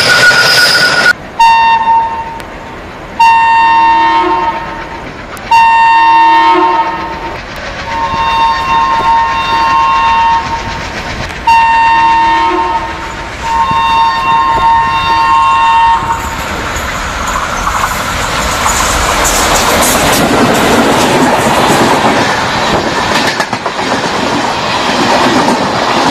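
Indian Railways diesel locomotive horn sounded six times, in blasts of one to two and a half seconds, as the train approaches. Its coaches then rush past close by with steady wheel rumble and clickety-clack over the rail joints.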